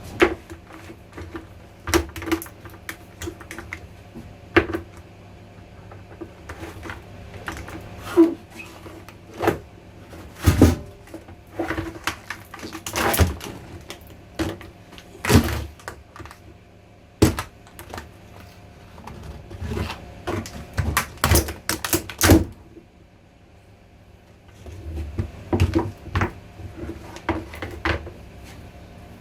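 Irregular knocks, clicks and clatter of fan heater parts and tools being handled on a workbench while the heater is taken apart, with a short lull near the end, over a faint steady hum.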